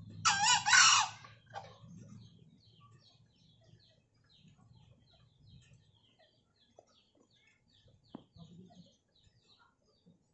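A caged junglefowl-type cock crowing once near the start: a short, high, two-part crow about a second long. Faint high chirping follows, repeating a few times a second.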